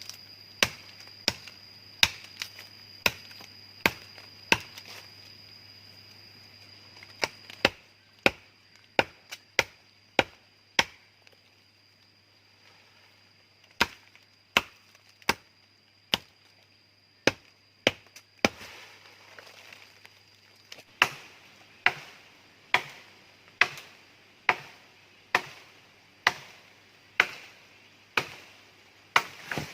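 Repeated sharp chops of a blade cutting into wood, about one to two strokes a second, with a pause of about three seconds near the middle.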